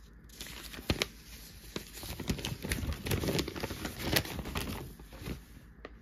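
Newsprint sheets of a Sunday comics section rustling and crinkling as they are handled and shifted, with many sharp paper crackles. It starts just after the beginning, is loudest in the middle and dies down near the end.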